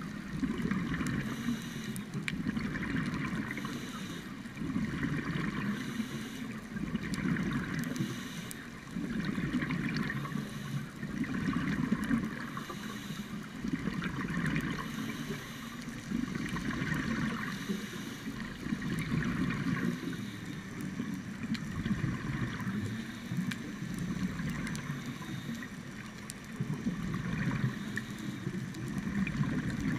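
A scuba diver's regulator breathing, heard underwater through a camera housing: gurgling bubble surges and hiss recurring about every two seconds.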